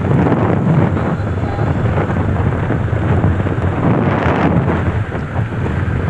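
Steady wind rushing over the microphone of a moving motorcycle, with the bike's running and road noise underneath.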